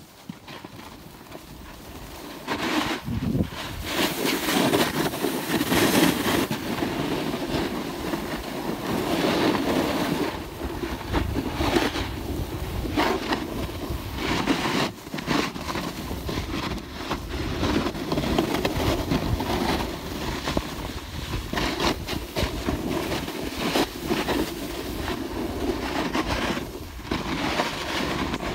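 Snowboard sliding over packed, groomed snow: a continuous rumbling scrape with frequent short chattering scrapes, mixed with wind noise on the microphone. It grows much louder about two to three seconds in, as the ride picks up speed.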